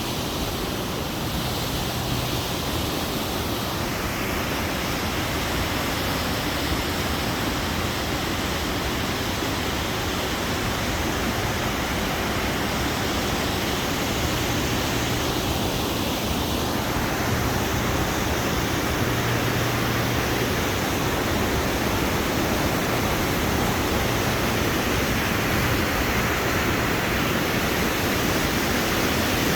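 Waterfall and rushing mountain stream: a steady, loud rush of falling water.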